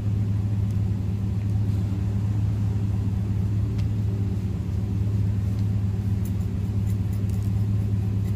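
Steady low mechanical hum that does not change in pitch or level, with a few faint light clicks.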